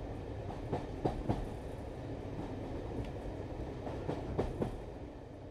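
Passenger train running with a low rumble and wheels clicking over rail joints, a few clacks in pairs, fading out near the end.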